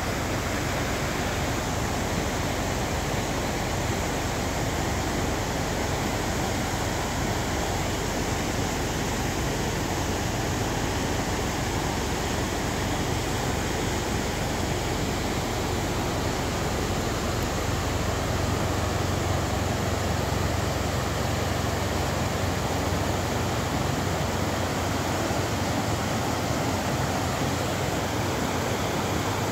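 The East Fork of the San Gabriel River running high, its whitewater rushing steadily over rocks.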